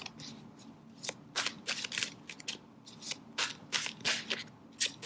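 A deck of tarot cards being shuffled by hand, in a series of irregular crisp flicks and slaps of the cards.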